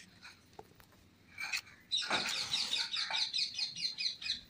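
A match struck on a matchbox about a second and a half in, then a bird chirping in a quick run of short, high notes.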